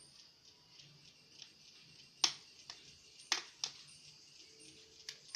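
A few sharp clicks and taps from handling laptop parts and tools: one about two seconds in, then two close together a second later, over a steady faint hiss.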